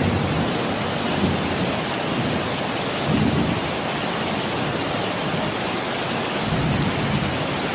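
Heavy rain pouring down in a steady hiss, with a few short low rumbles mixed in.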